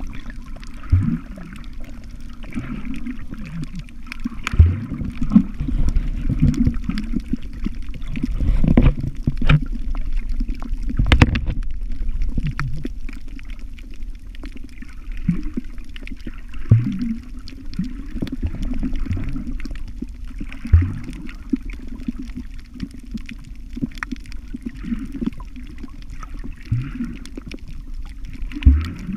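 Muffled underwater sound of water moving around a submerged camera, with gurgles, short gulping sounds and a few sharp knocks scattered throughout.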